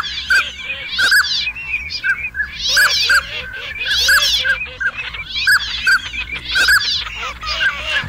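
Duck calls: loud high whistles about once a second over a quick run of short piping notes and lower arching calls, repeating in a regular pattern.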